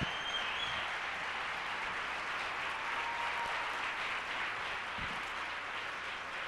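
Audience applauding steadily, a continuous even clapping that neither builds nor fades.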